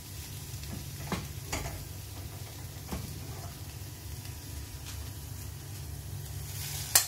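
Sautéed onion and chilli mixture sizzling faintly in a hot steel kadai, with a few light knocks of the pan as it is gripped with a cloth and lifted off the burner. Near the end a sharp click, and a low steady hum cuts off with it.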